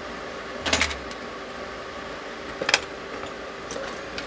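Small hard objects clicking and knocking against each other and the bench as parts and tools are handled: a short clatter about a second in, another sharp click near three seconds, then a few light ticks.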